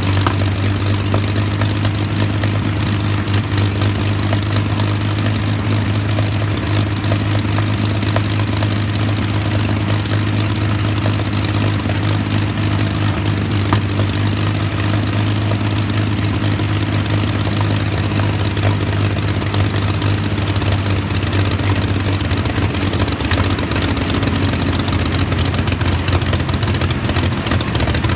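Rolls-Royce Merlin V12 aero engine running steadily on a ground test stand, driving its propeller, with a deep even note. The note rises slightly near the end.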